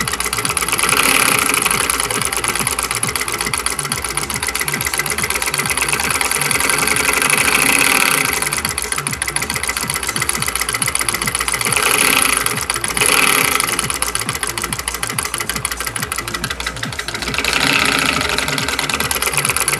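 Homemade single-cylinder solenoid engine with a mechanical switch, running fast after being sped up: a rapid, even clatter of the solenoid and its linkage. The clatter swells louder several times.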